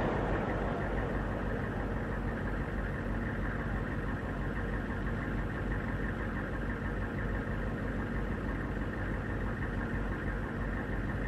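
The echo of a TOW missile launch dying away over the first second, then an engine idling steadily.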